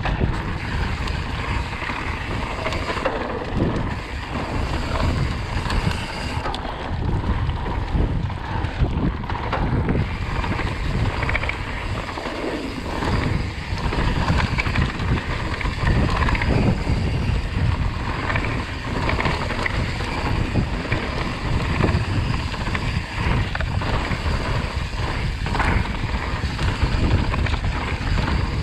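Wind buffeting a moving microphone: a constant low rumbling rush that swells and dips unevenly.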